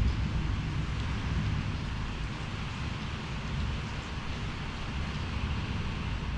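Storm wind blowing steadily, with a low rumble of wind buffeting the microphone and an even hiss above it.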